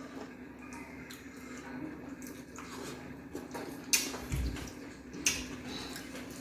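Wet, squishy eating sounds of fufu and ogbono soup being eaten by hand, with two sharp clicks about four and five seconds in, over a steady low hum.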